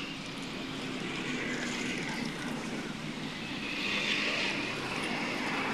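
Steady rushing engine and road noise of a passing vehicle, growing louder about four seconds in.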